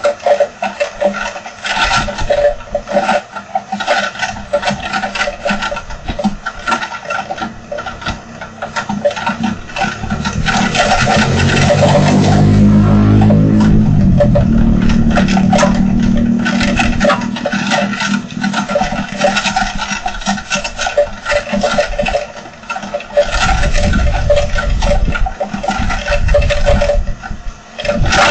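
Heavy rain with wind, dense drops pattering and rattling on a hard surface. About halfway through, an engine swells and fades as a vehicle passes, its pitch falling as it goes by.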